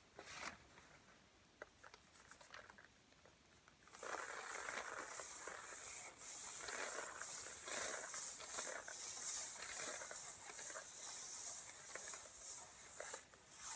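A rain sound effect being performed: a few faint clicks, then about four seconds in a steady pattering hiss like rain starts up and keeps going, swelling and easing a little.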